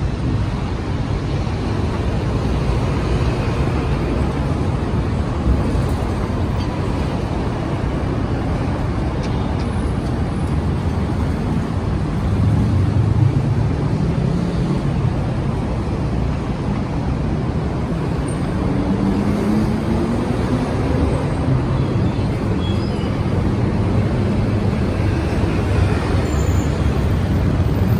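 Steady road traffic from a busy intersection below: a continuous low rumble of engines and tyres. About two-thirds of the way through, one vehicle accelerates with a rising engine note.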